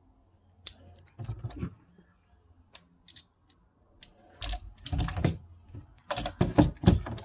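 Clicks and clunks of RV door lock parts being handled and fitted back together by hand, in irregular clusters that grow busier in the second half.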